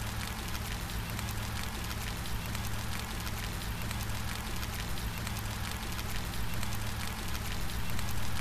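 Steady rain falling, a dense patter of many individual drops over a continuous low rumble.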